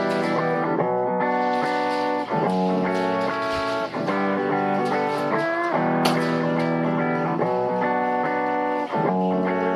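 Background music led by guitar: sustained electric guitar chords changing about once a second.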